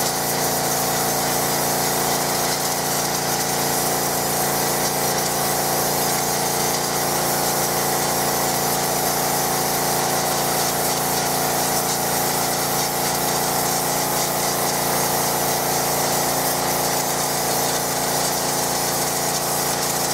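McAllister 180 bar petrol pressure washer running steadily, the even drone of its petrol engine under the hiss of the high-pressure water jet spraying.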